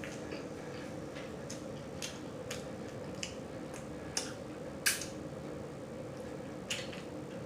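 Close-up mouth sounds of someone chewing food: scattered wet smacks and clicks, about nine in all, the loudest about five seconds in. A steady low hum runs underneath.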